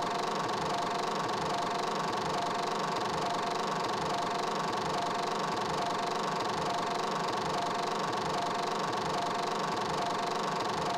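A machine running steadily: an even drone with a constant hum and a low, regular throb underneath.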